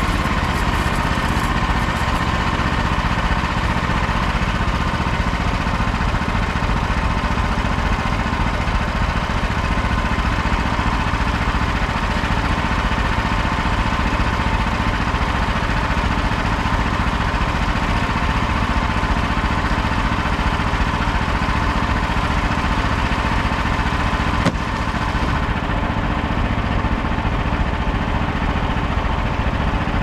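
Frontier OS27 bandsaw mill running steadily under its petrol engine while its band blade cuts along a Scots pine log. There is one brief click about three-quarters of the way through.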